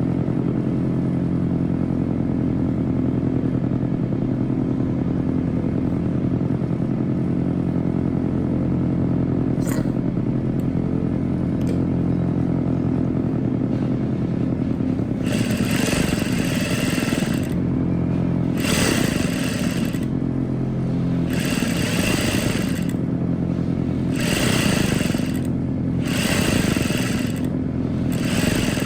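Sewing machine motor running with a steady hum while seams are stitched. From about halfway, short bursts of higher rustling noise come every few seconds.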